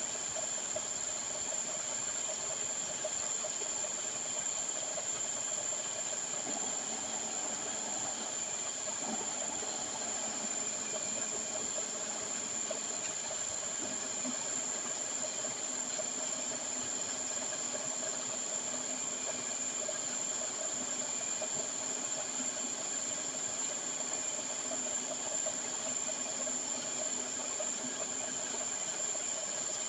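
Gold-processing plant machinery running steadily: an even hiss with a constant high whine and a steady hum underneath.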